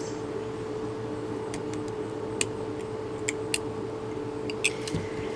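Small Dremel rotary tool running with a steady even whine as it grinds paint off a composition doll's arm. Light irregular clicks come through as the bit catches the surface.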